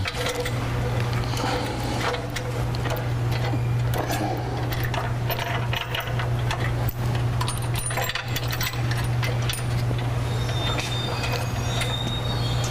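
Scattered metal clicks and clinks of bolts and washers being started into a steel bumper's mounting brackets, over a steady low hum.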